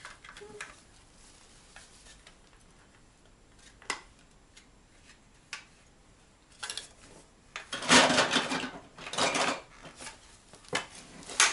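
Dishes and cutlery clinking: scattered light clicks, then a louder clatter about eight seconds in and a sharp knock near the end.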